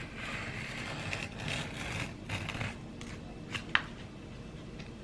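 Exacto craft knife cutting foam board, a run of scratchy dragging strokes over the first three seconds, then a sharp click nearly four seconds in.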